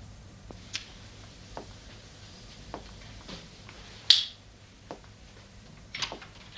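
A cigarette lighter struck about four seconds in: a sharp click with a short hiss of flame, the loudest sound. Around it, soft scattered clicks about a second apart in a quiet room, with a small cluster of clicks near the end.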